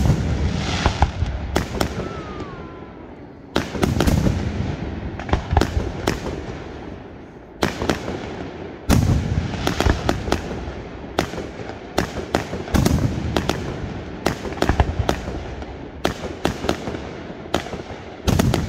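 Aerial firework shells bursting in a display: a loud boom every few seconds, each trailing off in rumble and crackle, with many smaller sharp reports popping in between.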